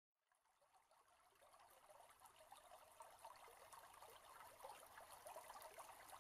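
Small stream trickling and flowing faintly over a shallow bed, fading up from silence and growing slowly louder.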